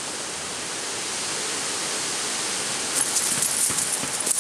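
Steady hiss, with a spell of crisp crackling from about three seconds in: dry fallen leaves rustling under a husky's paws.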